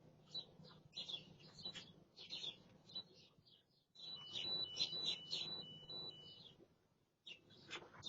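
Small birds chirping throughout. About four seconds in comes a run of short electronic beeps stepping between two high pitches for about two seconds. These are from a door keypad lock as a code is keyed in that fails to open it.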